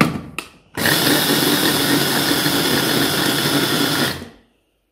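Electric mini chopper running at full speed for about three and a half seconds, its blade whirring through coarse rolled oats and grinding them down, then spinning down near the end. A few short clicks come just before it starts.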